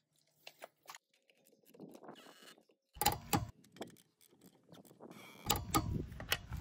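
Metal clinks, knocks and scraping of a socket and torque wrench being handled at a car's wheel nut. A few faint clicks come early, a sharper cluster of knocks comes about three seconds in, and a longer stretch of clinking and rustling comes near the end as the socket is seated on the nut.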